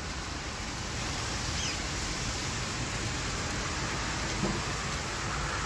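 Steady, even rushing noise with a low rumble and no clear tone.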